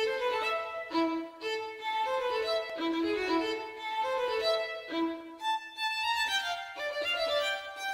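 Background music led by a violin playing a repeating melodic phrase.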